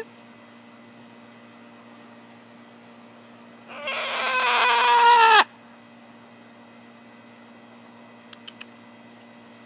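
Blue-and-gold macaw giving one loud drawn-out call of nearly two seconds that grows louder and cuts off abruptly, followed near the end by three short faint clicks.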